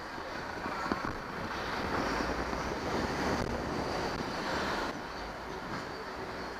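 Wind rushing over a bike-mounted camera's microphone as the cyclist rides away, a steady noisy rush with a low rumble underneath. It builds over the first couple of seconds and drops suddenly about five seconds in.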